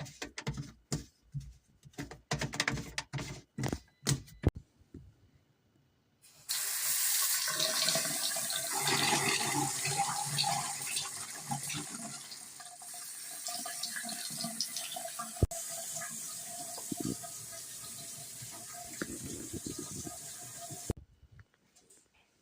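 A run of sharp knocks and clicks, then, about six seconds in, a faucet running water into the sink and down the newly fitted P-trap drain for about fifteen seconds before it is shut off abruptly.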